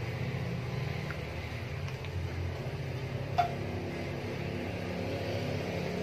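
Steady low machine hum, like a fan or cooker hood running. A little past halfway comes a single sharp metallic clink as a spoon knocks against the wok of lumpia filling.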